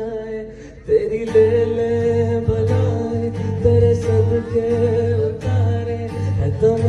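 A man singing a slow Hindi song into a microphone, holding long notes, while playing an acoustic guitar.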